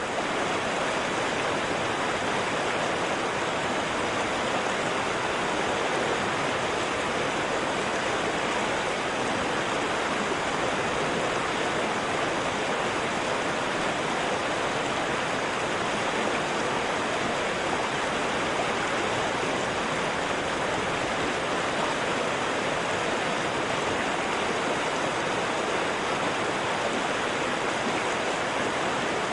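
River water flowing steadily over rocks, an even, unbroken rush.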